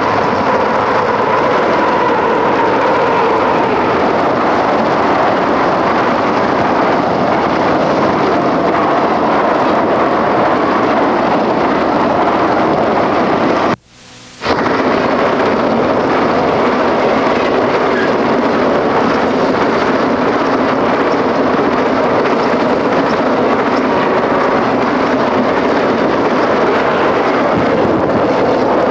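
Trains passing close by on an electrified main line: a freight train hauled by GG-1 electric locomotives and an overtaking Amtrak passenger train make a continuous loud rumble and rush of wheels on rail. It is picked up by a Super 8 movie camera's built-in microphone. A steady tone fades out over the first few seconds, and about halfway through the sound drops out for under a second at a splice.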